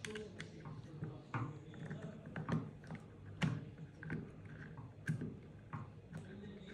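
Allen key turning a screw into a crossbow's magazine mount: about ten small, irregular clicks and taps as the key is set and turned.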